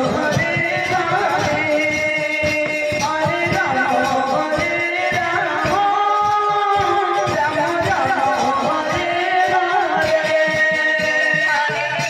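Odia nama sankirtan devotional music: melodic singing over a steady pattern of drum and percussion strokes.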